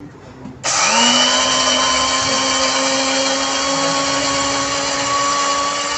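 Electric spice grinder's 700-watt motor switching on about half a second in, winding up quickly to speed, then running steadily with a high whine while it grinds green moong dal.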